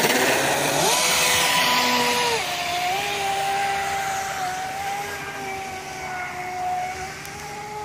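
Traxxas Spartan RC speed boat's brushless motor on 6S LiPo power at full throttle: a high whine that climbs as the boat launches with a rush of spray, then holds. The pitch drops a little about two and a half seconds in, and the whine settles steady and slowly fades as the boat runs away across the water.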